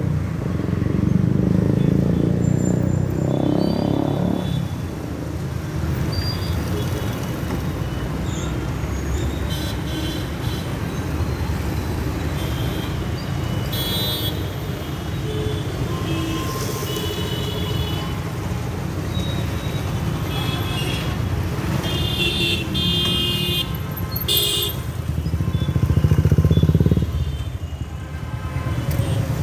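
Busy road traffic: a steady rumble of motorcycles and cars, with short horn honks that come repeatedly from about ten seconds in. A louder vehicle swells up and passes near the end.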